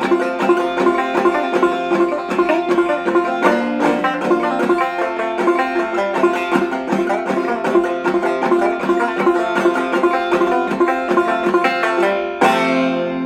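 Five-string banjo played clawhammer style, a fast run of plucked notes with no singing, ending near the end on a final chord that rings and fades away.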